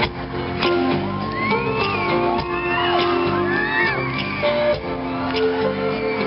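Live pop-rock band playing in an arena, with held instrument notes and regular beats, while the crowd screams and whoops over the music.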